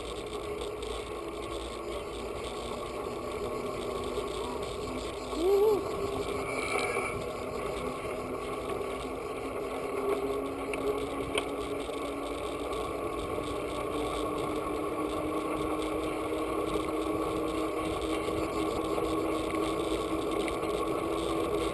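Wind and tyre noise from a bicycle coasting downhill on an asphalt road, a steady rush with a low hum that rises slowly in pitch. A brief louder burst comes about five and a half seconds in.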